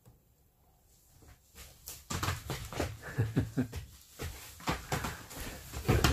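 A grown dog and a puppy play-fighting, scuffling and rustling on a plastic tarp, with short growls, starting about two seconds in and growing louder.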